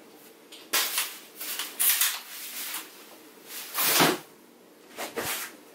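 Ultralight umbrella being folded shut and put away: several bursts of fabric rustling and frame clatter, the loudest about four seconds in. Near the end comes a short bout of handling of gear on a table.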